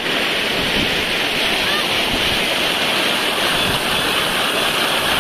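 Muddy floodwater rushing over a submerged concrete causeway and pouring off its edge as a churning cascade, a steady, loud rush of water.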